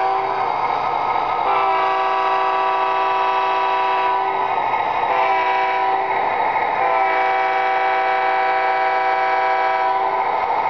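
Proto-Sound 2.0 sound system of an MTH Premier O-scale Union Pacific SD40-2 model locomotive blowing its multi-chime diesel horn. The tail of one long blast ends about half a second in, followed by a long blast at about 1.5 s, a short one at about 5 s and a long one of about three seconds at about 7 s: the long, long, short, long grade-crossing signal. Under the horn runs the steady running noise of the moving model.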